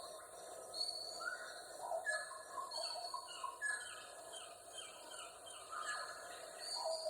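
Rainforest ambience: several birds calling and chirping, many short descending notes overlapping, over a steady background of insects.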